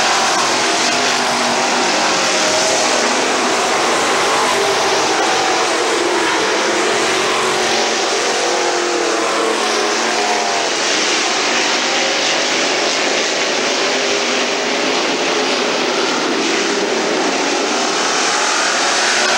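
A pack of street stock race cars lapping a dirt oval. Several engines run at full throttle together, their pitches rising and falling as the cars pass and go round the turns, over a constant loud din.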